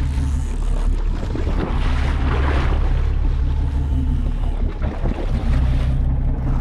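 Boat engine running with a steady low rumble, with wind on the microphone and water washing against the hull; a louder rush of noise swells and fades about two seconds in.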